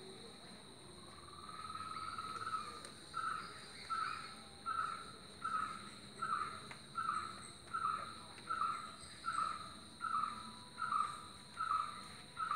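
An animal's short call repeated steadily, about one and a half times a second, after a first drawn-out rising note. Under it runs a steady, high-pitched insect drone.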